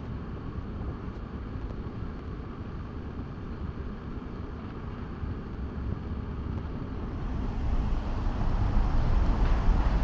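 City street traffic: a steady low rumble of passing cars, growing louder over the last few seconds as traffic passes close.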